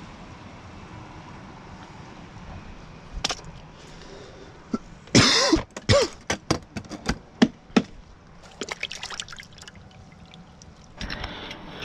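Water splashing and dripping in a bucket. A burst of splashing comes about five seconds in, followed by a quick run of sharp drips and plops lasting a few seconds.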